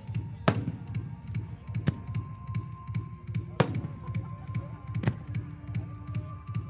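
Fireworks going off: sharp reports from shells bursting and firing, the loudest about every second and a half with smaller pops between. Under them runs music from the show's loudspeakers with a steady low beat.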